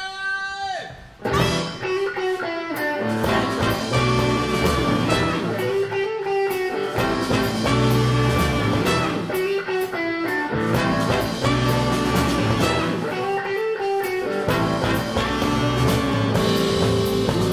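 Live band playing an instrumental groove on electric guitar, bass and drums, coming in together about a second in after a brief held note. A riff repeats roughly every two seconds.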